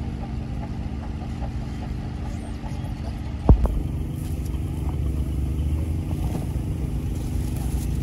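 An engine running steadily at one pitch, a low hum, with a single sharp thump about three and a half seconds in.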